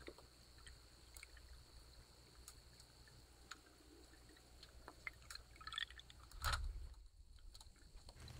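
Near silence: a faint low hum with scattered small ticks, and one brief louder rustle about six and a half seconds in.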